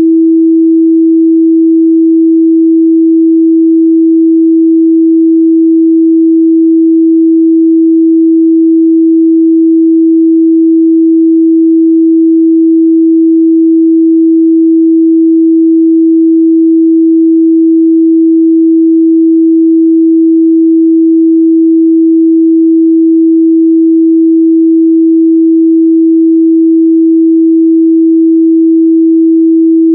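A steady 326 Hz sine-wave test tone, one pure pitch held at a constant loud level without a break.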